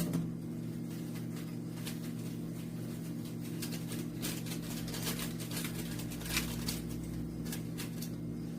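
Faint crinkles and scattered ticks from a packet of dry yeast being handled, over a steady low hum.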